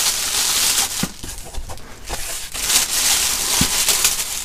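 Thin plastic wrapping crinkling in uneven surges as the monitor stand inside it is handled, with a short knock about three and a half seconds in.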